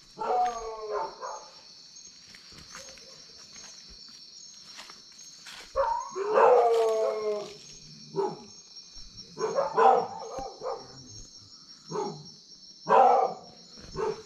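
Dogs barking and howling in separate bouts, with a longer drawn-out howl about six seconds in and further barks near the ten- and thirteen-second marks.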